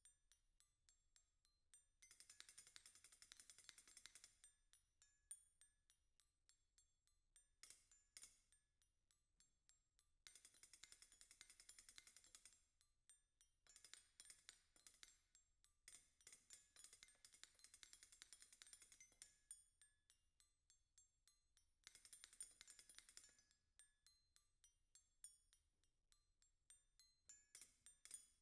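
Metal spoons played as percussion by two players: soft, scattered clinks and ticks, broken by five stretches of a couple of seconds each of dense, high jangling rattle.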